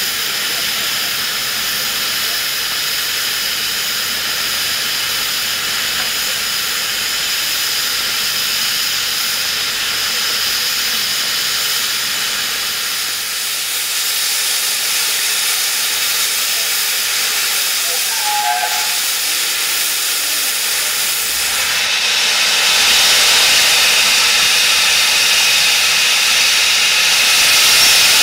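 Steam locomotive letting off steam: a steady hiss that grows louder about 22 seconds in and again near the end.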